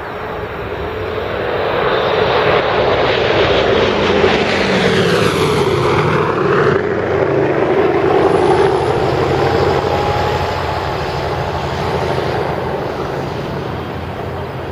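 Douglas DC-6B's four radial piston engines and propellers droning as the airliner passes close by. The sound swells over the first couple of seconds, drops in pitch as it goes past about five to seven seconds in, then slowly fades.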